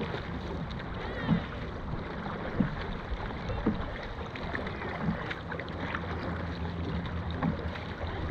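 Dragon boat under way: paddles striking the water in a regular rhythm, a low thump about every second and a quarter, over steady water and wind noise.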